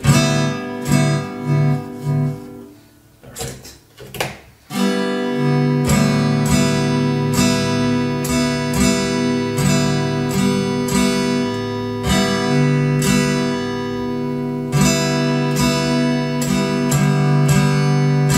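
Recorded strummed acoustic guitar music playing through the mixer as a test signal. It is patchy with short dropouts for the first few seconds, then plays steadily from about five seconds in.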